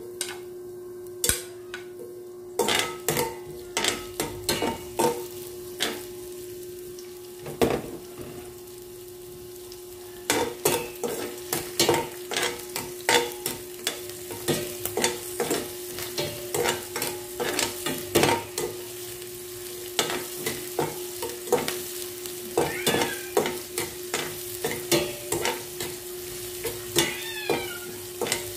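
Sliced onions sizzling in hot cooking oil in a nonstick pan, with a spatula repeatedly scraping and tapping the pan as they are stirred. The sizzling grows louder about ten seconds in.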